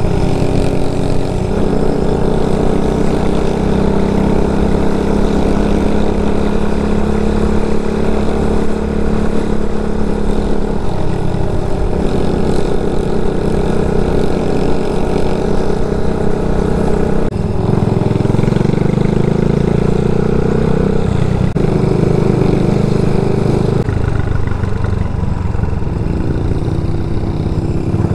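Single-cylinder four-stroke CG250 engine of an RPS Condor small motorcycle running under way, its pitch shifting in steps several times with throttle and gear changes.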